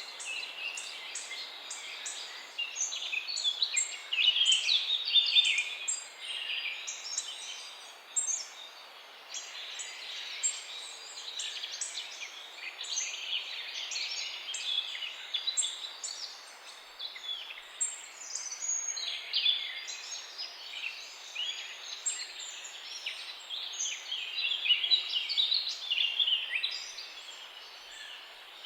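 Many small birds chirping and twittering at once: a dense chorus of short, high, quick chirps and trills over a steady background hiss.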